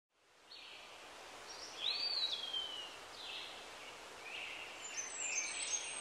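Birds singing over a steady outdoor hiss, fading in at the start: several short song phrases, one a whistle that rises and then glides down about two seconds in, with thin high whistles near the end.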